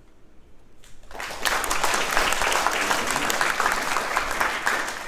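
Audience clapping their hands in applause, breaking out about a second in and holding steady after the end of a piano piece.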